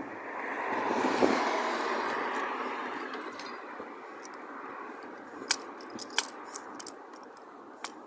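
A broad rush of noise swells and fades over the first few seconds. Then comes a handful of sharp metallic clicks and clinks, irregularly spaced, from a clamp and metal mount parts being handled.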